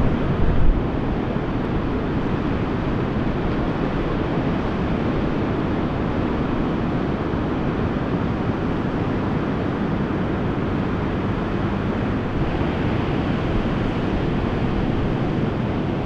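Ocean surf breaking and washing in as a steady rush of noise, with wind buffeting the microphone.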